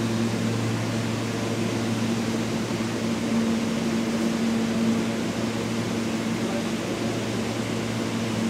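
Steady low mechanical hum with a constant droning tone: the ambient drone of an underground subway station platform with no train in.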